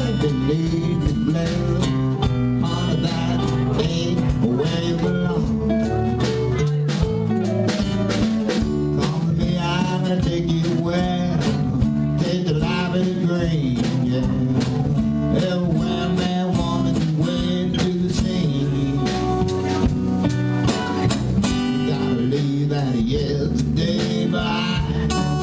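Live band playing an instrumental break in a bluesy roots-rock song: a lead guitar line with bent notes over strummed acoustic guitar, a low bass part and drums keeping a steady beat.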